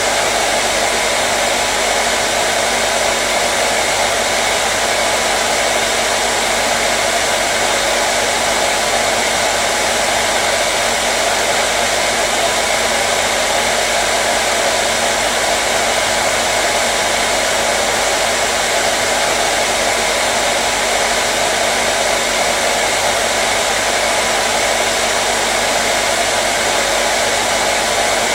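Hair dryer (blow dryer) running steadily at one speed: an even airy whoosh with a faint motor hum beneath, unchanging throughout.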